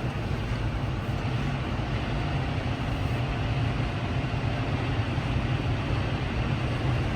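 Case IH 6160 Axial-Flow combine running steadily under load while unloading grain with its auger out: an even, low mechanical hum with no change in pitch.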